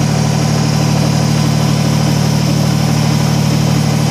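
Kubota BX25D compact tractor's three-cylinder diesel engine running steadily at a low, even speed.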